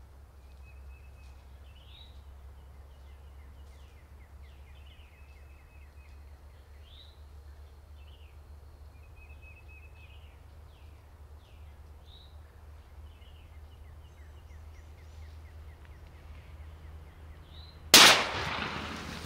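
Songbirds chirping faintly, then about eighteen seconds in a single very loud, close shotgun blast, a hunter's shot at a turkey, its echo dying away.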